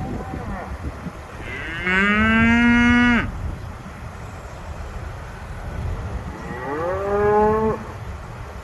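A cow mooing twice: a long, loud call of about a second and a half that rises in pitch, holds and drops off at the end, then a shorter one a few seconds later.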